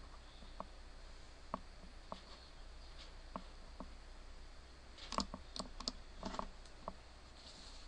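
Faint, scattered clicks of a computer mouse: single clicks now and then, then a quick run of several about five to six seconds in, over a low steady hum.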